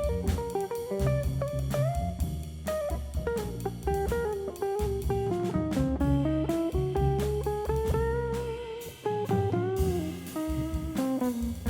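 Jazz band playing an instrumental passage, a guitar carrying the lead melody with sliding, bent notes over bass and drum kit.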